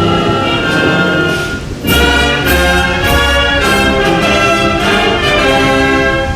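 Orchestral music with brass to the fore. It breaks off briefly just before two seconds in, then comes back with strong low notes.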